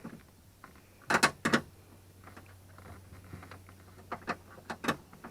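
Sharp metallic knocks and clicks of a wrench and hardware working inside a pickup truck's door panel: two loud knocks about a second in and a few lighter clicks near the end, over a low steady hum.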